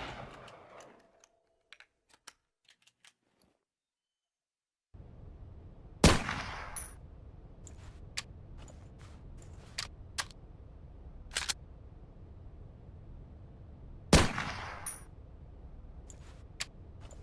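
Sharps rifle firing two single shots about eight seconds apart, each sudden and loud with a ringing tail, after the tail of an earlier shot dies away in the first second. Sharp clicks sound between and after the shots.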